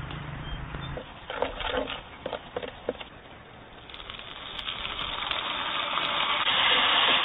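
Food frying in a blackened wok over an open wood fire: a hiss that builds up from about four seconds in and keeps getting louder. Before that there are a few scattered clicks and knocks.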